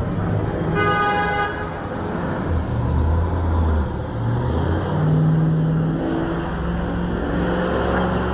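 Street traffic with engines running, and a vehicle horn honking once, briefly, about a second in.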